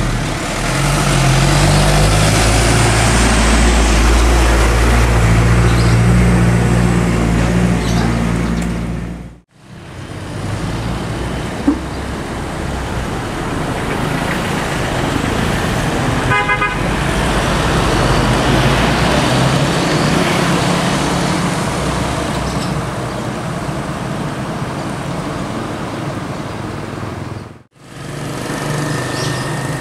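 A Hino intercity bus's diesel engine running at the kerb amid passing road traffic and motorcycles. About halfway through a horn gives a short, rapidly pulsing toot, and the sound cuts out briefly twice.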